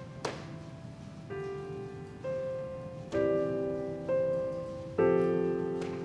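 Soft background score of slow piano-like keyboard notes, a new note or chord struck about once a second and each fading away. A short click comes near the start and another near the end.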